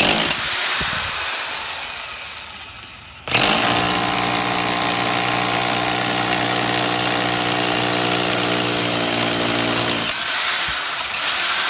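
Corded rotary hammer drill (Classic CLA-5426, 1010 W) hammer-drilling into a thick wall. A short run at the start fades away. Then the drill kicks in sharply about three seconds in, runs steadily and loudly for about seven seconds, stops, and whines briefly near the end.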